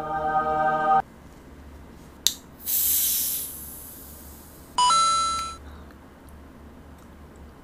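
An aluminium soda can's pull tab clicks open about two seconds in, followed by a fizzing hiss of escaping carbonation that fades over a second or so. A steady electronic buzz tone sounds for about a second at the start, and a chiming beep comes near five seconds in.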